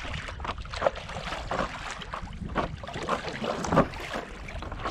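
Stand-up paddleboard paddles dipping and splashing in the sea, about one stroke a second, over wind rumbling on the microphone.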